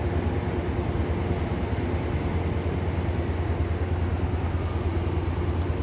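Steady low rumble of a Class 68 diesel locomotive idling on standby at the platform, its engine running evenly.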